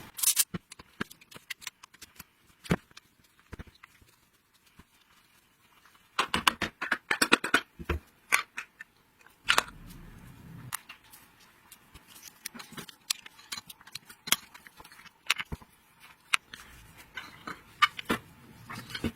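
Scattered sharp clicks and knocks of small metal parts and hand tools being handled, with a dense run of clattering about six to eight seconds in.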